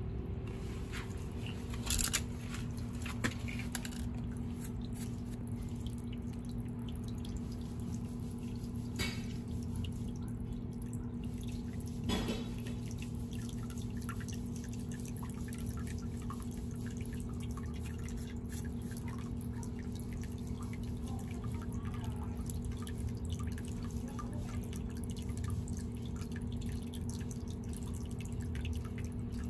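Water dripping and trickling into a small outdoor fish-pond tub, over a steady low hum, with a few louder drops standing out.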